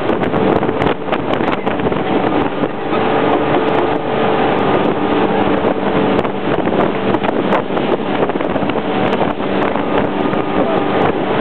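Small motorboat ferry running at speed: a steady engine drone with several held pitches, over the rush of water and wind buffeting the microphone.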